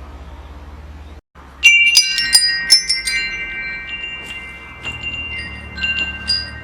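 Metal wind chime: a flurry of quick strikes with clear tones that ring on, starting about a second and a half in, then scattered single strikes and a second flurry near the end. Before the strikes there is a faint low rumble that drops out briefly.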